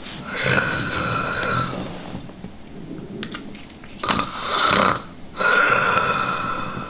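A man snoring loudly in his sleep: three long snores, the last and longest starting about halfway through, with short quieter gaps between them.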